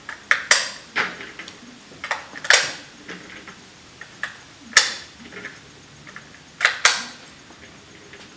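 A run of about seven sharp clicks and clacks, unevenly spaced and some in quick pairs, from hands working an AR-15 rifle and its gear at the shooting bench.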